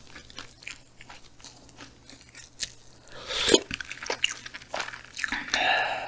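Close-miked chewing of grilled frog meat: wet mouth clicks and soft crunches, with a louder noise about three and a half seconds in and a longer one near the end.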